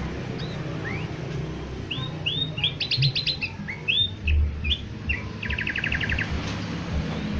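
Sooty-headed bulbul (trucuk) singing: short clear phrases of rising and arched whistled notes, with a quick run of rapid repeated notes a little before the end, over a low background rumble.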